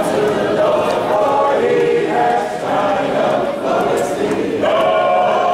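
Many voices singing together as a choir, with sustained sung notes and some talking mixed in.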